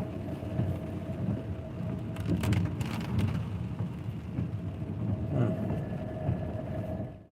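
Road and engine noise of a moving car heard from inside the cabin: a steady low rumble with a faint hum and a few brief knocks about two to three seconds in. The sound cuts off suddenly near the end.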